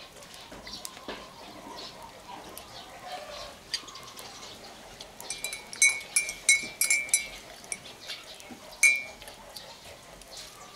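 Goats bleating in the background, with a quick run of short high chirps and clicks around the middle.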